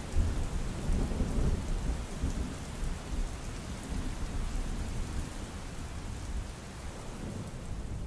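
A low rumble of thunder over steady rain. The thunder breaks sharply right at the start and slowly rolls away.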